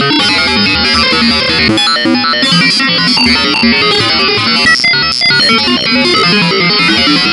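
Loud bytebeat from a GDI malware payload: harsh computer-generated synth tones stepping rapidly through pitches in a repeating, chiptune-like pattern.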